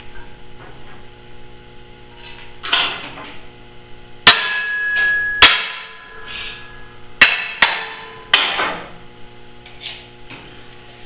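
Steel parts clanking on a steel welding table: five sharp metal-on-metal hits, the first leaving a high ringing tone for a couple of seconds, with softer scraping and handling noises between them over a steady shop hum.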